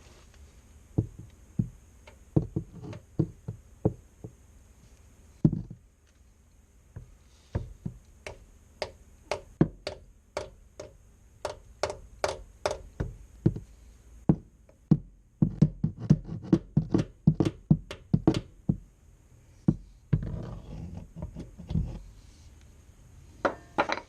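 Hammer striking a threaded rod screwed into a soft Moroso bellhousing dowel pin, knocking the pin into the engine block. The blows come in uneven runs of sharp knocks, with brief pauses, and the runs get quicker and denser after the middle.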